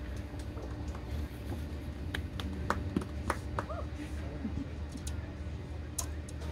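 Stadium crowd ambience while the band waits to start: a steady low rumble with faint voices, and a handful of sharp clicks and taps in the middle and again near the end.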